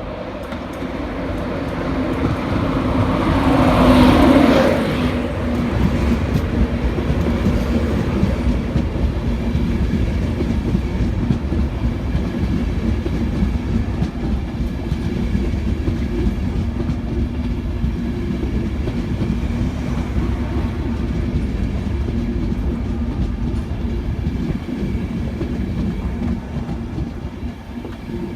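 Freight train rolling past at speed: the wagons rumble and clatter over the rail joints, loudest about four seconds in, then a steady rolling rumble that eases near the end.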